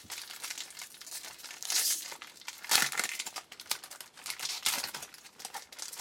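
Foil wrapper of a 2012 Bowman Jumbo baseball card pack crinkling and tearing as it is opened by hand, in irregular crackles with a louder one about three seconds in.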